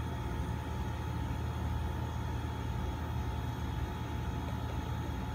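A steady low hum, like a running appliance or room machinery, with a faint thin tone above it and no distinct events.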